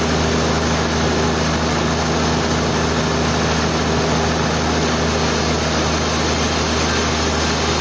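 Sawmill machinery running steadily: a constant low engine hum with a broad noisy hiss over it, unchanging throughout.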